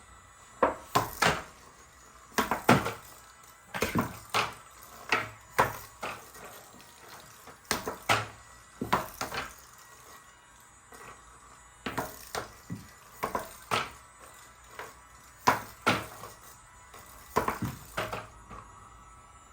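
Hard plastic clacks and knocks from a toy air hockey set, coming in quick clusters of two or three with short pauses between.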